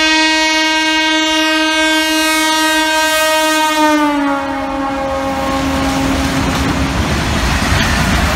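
A goods train locomotive's horn sounds one long blast and drops in pitch about four seconds in as the locomotive passes. The horn then fades into the steady rolling noise of the loaded open wagons going by.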